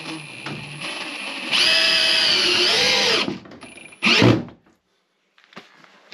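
Cordless drill-driver driving a screw into a wooden block: a steady motor whine lasting about a second and a half that dips and recovers in pitch, then a short final burst about a second later.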